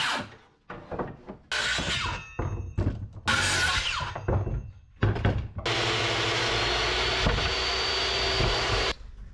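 Makita cordless circular saw cutting mahogany board in several short bursts, the blade whining as it spins down between cuts. Near the end a longer steady saw run of about three seconds stops abruptly.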